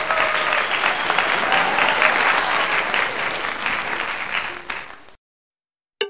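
Crowd applause, an edited-in sound effect, starting abruptly and cutting off sharply about five seconds in.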